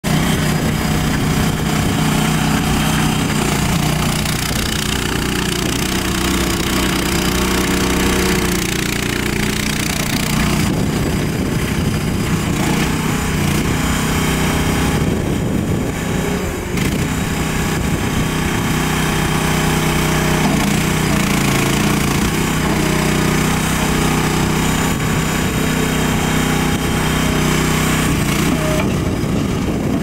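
Small engine of a compact stand-on tracked skid steer loader running steadily while the machine is driven and its bucket worked, the pitch shifting a little now and then.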